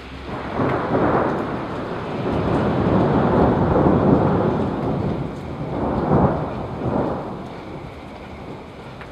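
Thunder rolling in a long rumble with several swells, starting about a second in and fading near the end, over steady rain.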